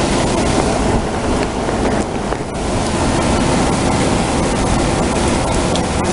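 Heavy thunderstorm rain with strong wind, a steady dense noise with wind buffeting the microphone.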